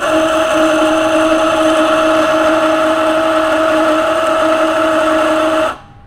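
Anfim 75 mm flat-burr coffee grinder with titanium burrs grinding a timed, pre-programmed dose into a dosing pot. The motor runs with a steady hum and whine, then cuts off sharply by itself near the end as the timed dose finishes.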